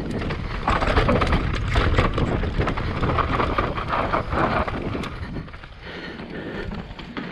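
Mountain bike descending a dry dirt trail: tyres crunching and the bike rattling over rough, rocky ground, with wind buffeting the microphone. It eases off about five and a half seconds in.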